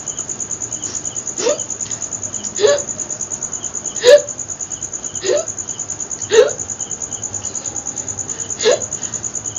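A woman hiccuping six times, about one to two seconds apart, each hiccup a short sharp catch of the voice with a quick upward flick in pitch; the loudest comes about four seconds in. A steady, fast, high-pitched pulsing runs underneath.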